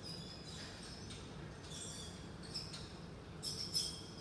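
A kick scooter rolling over a tiled floor, with faint, short, high squeaks about once a second.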